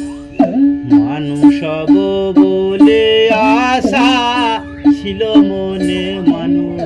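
Background music: plucked string notes keeping a steady beat, with a wavering held melody line about halfway through.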